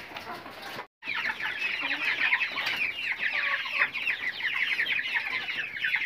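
A caged flock of chickens calling all at once: a dense chatter of many short, high, downward-sliding peeps overlapping continuously. It starts after a brief dropout in the sound about a second in.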